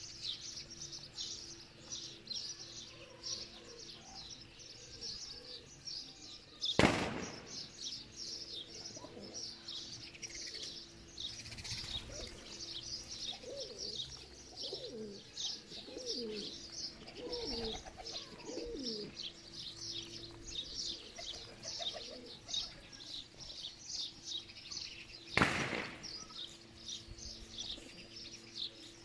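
Domestic pigeons cooing in low, gliding calls, mostly in the middle stretch, over constant rapid high chirping from small birds. Two short loud bursts stand out, about 7 seconds in and near the end.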